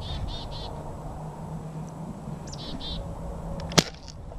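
A small songbird chirping in quick runs of short, high notes, twice. About four seconds in comes a single sharp shot from the gun aimed at it, which misses.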